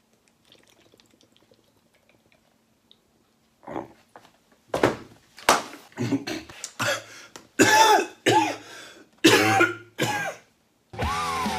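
A man coughing and spluttering in about nine hacking fits over several seconds, choking on a drink that went down the wrong way. Rock music starts up near the end.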